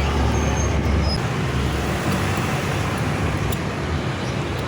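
Steady low rumble of motor-vehicle engine noise.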